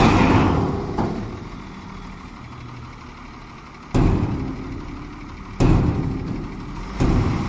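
Heavy diesel machinery engine running, with sudden jumps in loudness at the start and about four, five and a half and seven seconds in, each fading away over a second or so.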